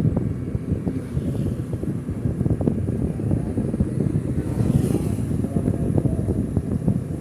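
Wind buffeting the microphone in a gusty low rumble, as when riding on a moving motorcycle.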